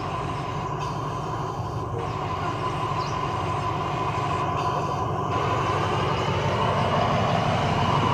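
Diesel-electric locomotive hauling a passenger train toward the listener, its engine running steadily with a thin, steady whine above it, growing slowly louder as it nears.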